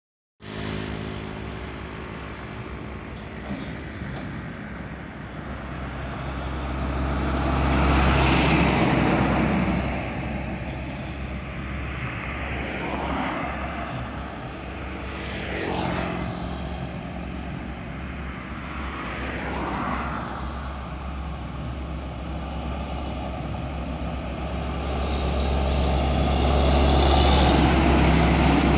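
Road traffic passing close by: trucks and cars go past one after another, engine and tyre noise swelling and fading with each pass. The loudest pass comes near the end as a loaded semi-trailer truck goes by. A steady low rumble runs underneath.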